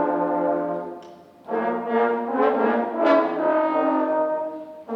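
Trombone section playing a short riff of held, low brass notes, breaking off about a second in and starting the phrase again.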